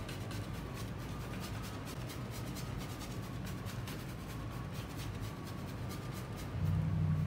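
Bristle brush scratching and dabbing oil paint onto a stretched canvas in many short, irregular strokes, over a steady low hum that grows louder near the end.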